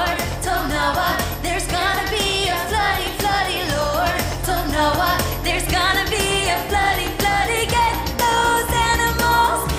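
A group of children singing a pop-style worship song along with a recorded backing track that has a steady bass line and beat.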